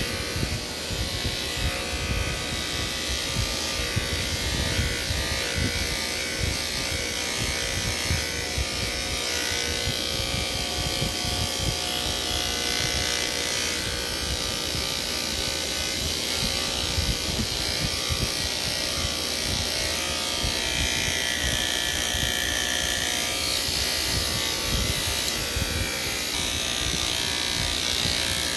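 Electric hair clippers running steadily while shaving a head of long hair.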